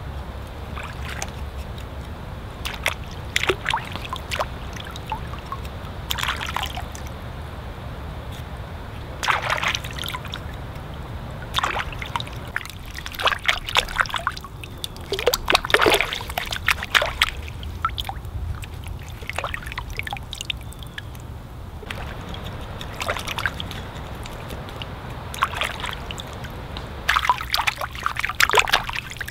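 Water sloshing and trickling in irregular bursts, over a steady low background noise.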